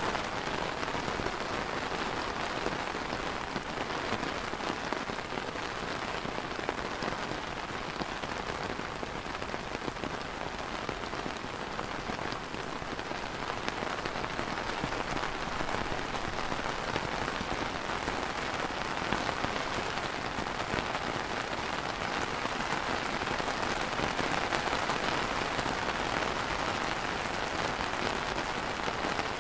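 Steady light rain falling on a clear plastic umbrella canopy.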